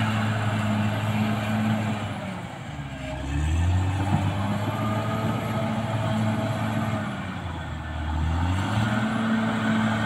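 Caterpillar D6R XL bulldozer's diesel engine running steadily. Its pitch drops about two to three seconds in, stays lower for several seconds, and rises back near the end.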